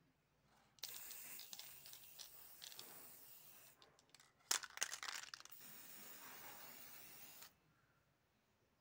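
Aerosol spray-paint can spraying: a steady hiss from about a second in to nearly four seconds, then a spell of sharp clicks and rattling, then a second long hiss that cuts off near the end.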